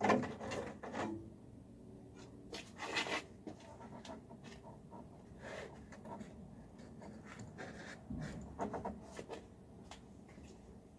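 Scattered knocks, clunks and rubbing from hands working a cable through the car's body, with the loudest clunk right at the start and further bursts of handling about 3 s and 8 to 9 s in.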